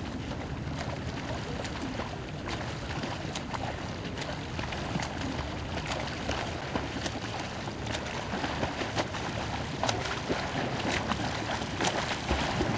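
Water sloshing and splashing around a kayak on open water, with frequent small sharp splashes and a steady rumble of wind and water.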